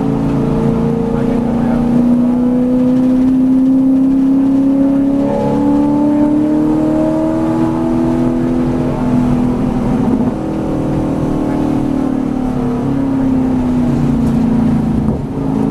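V8 Supercar's V8 engine heard from inside the cockpit, pulling hard up through the gears with its pitch climbing and stepping down at each upshift. About ten seconds in it eases off and the pitch falls in steps as the car slows, then picks up again near the end.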